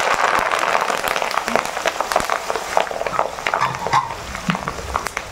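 Fresh curry leaves sizzling and crackling in hot oil in a steel kadhai, with many sharp pops as the water in the leaves spits, stirred with a slotted steel spoon. The sizzle is loud and eases a little toward the end.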